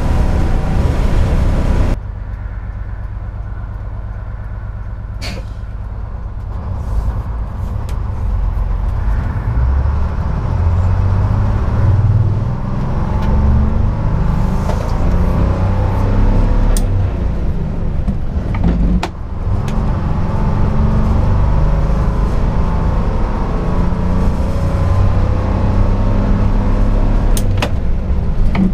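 A 1948 GMC Silversides bus's Detroit Diesel 6-71 two-stroke diesel running under way, heard from the driver's seat with road noise. The sound drops suddenly about two seconds in, then builds back up over the next several seconds. A few sharp clicks come through over it.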